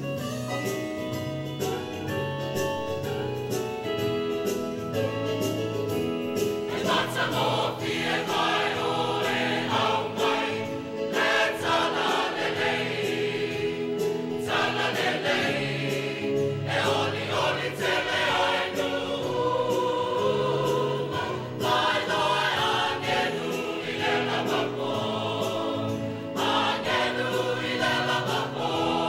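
Large mixed choir of men and women singing a Christmas song in Samoan over a steady low accompaniment; the singing swells fuller about seven seconds in.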